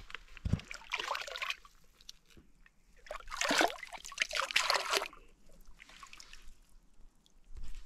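An insulated mug dipped into shallow lake water and filled, the water sloshing and splashing. A louder run of splashing and trickling comes about three seconds in and lasts a couple of seconds.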